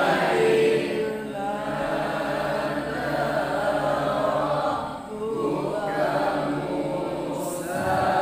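A group of boys chanting Quranic verses together in the melodic tilawah style, drawing out long sung notes, with a short break for breath about five seconds in.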